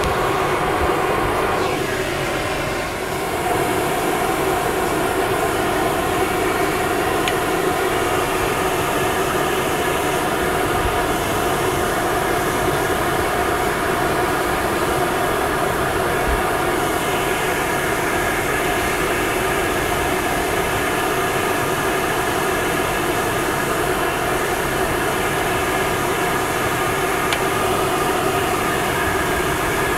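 Dog grooming dryer running steadily, blowing air with a constant whine over the rush of the airflow.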